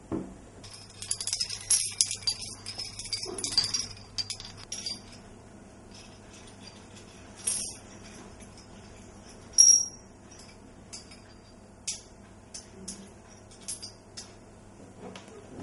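Light metallic jingling, like small bells, dense for the first few seconds and then thinning to scattered ticks, with one short bright ping near the middle that is the loudest sound.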